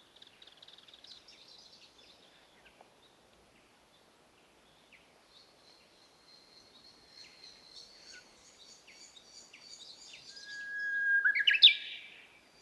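Several wild birds singing, with high thin chirps and trills over a faint steady outdoor hiss. Near the end one bird sings loudly, close by: a single held whistle followed by a quick, sharply rising phrase.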